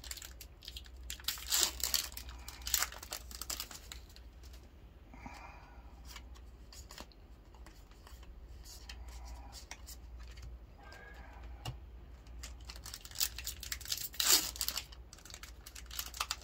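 Foil wrapper of a Yu-Gi-Oh Maximum Gold: El Dorado booster pack crinkling and tearing by hand, in two crackly spells: one from about a second in, one near the end. Quieter rustling of cards being handled and fanned comes between.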